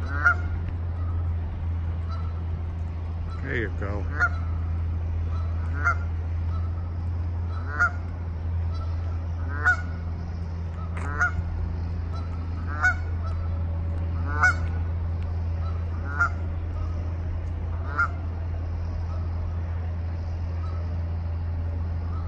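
Canada goose giving short, repeated honks, about one every two seconds, over a steady low rumble.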